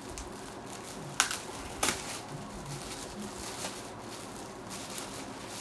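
Packaging rustling and crinkling as a shirt is unwrapped by hand, with two sharp, louder crackles about a second and two seconds in.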